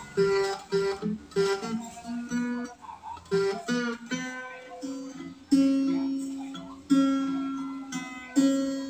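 Small-bodied acoustic guitar fingerpicked, playing a melody of single plucked notes. It starts with a quick run of short notes, then from about halfway slows to single notes about a second and a half apart, each left to ring and fade.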